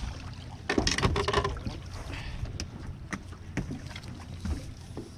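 Steady low rumble of wind and water on an open fishing boat, with a short loud burst of noise about a second in and a few sharp clicks and knocks after it.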